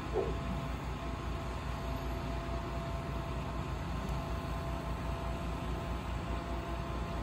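Truck-mounted crane's diesel engine running steadily while it lifts a section of a manufactured home, with a thin steady whine above the engine. A brief squeak just after the start.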